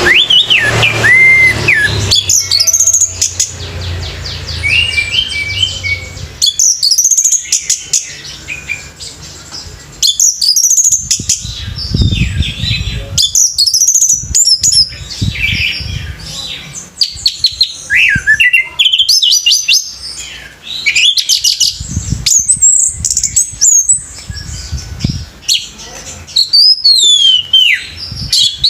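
Orange-headed thrush singing a long, varied song of loud whistled phrases, quick trills and chattering notes, with short pauses between phrases.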